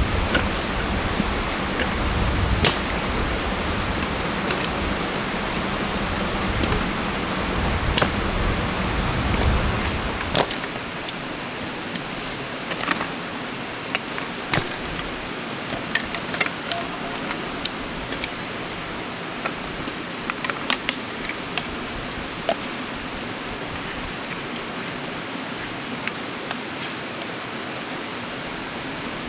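Steady rush of a stream's flowing water, with scattered small clicks and knocks. A low rumble under it drops away about a third of the way through.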